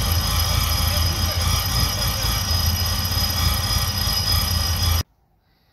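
Supercharged Pontiac G8 GT 6.0-litre V8 idling, with a steady low pulse and a steady high-pitched whine over it. The sound cuts off suddenly about five seconds in.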